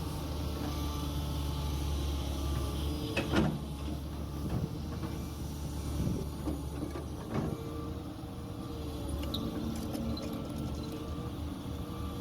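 JCB 3DX backhoe loader's diesel engine running steadily while it works, with a wavering mechanical tone over it. A few sharp knocks and clanks come through, the loudest about three seconds in.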